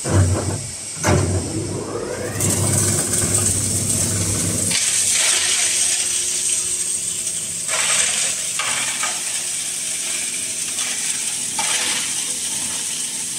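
Electric-motor, belt-driven hammer mill grinding lumps of charcoal into powder: a continuous loud rattling, grinding hiss that swells a few times as more charcoal goes in. Two heavy knocks near the start.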